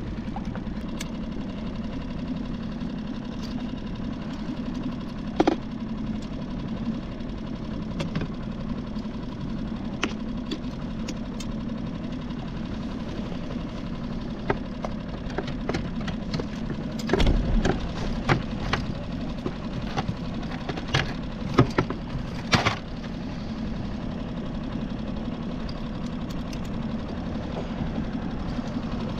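Small outboard motor idling steadily. Several sharp knocks and clatters break in, most of them in the second half, as the fish and gear are handled on the skiff.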